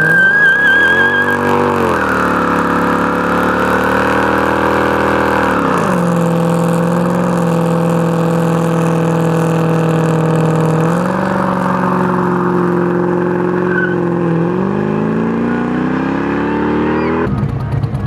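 Cadillac sedan doing a burnout: its engine is held at high revs while the rear tyres spin, with a wavering tyre squeal in the first second or so. The revs ease off about six seconds in, climb again in steps around eleven and fourteen seconds, and drop away near the end.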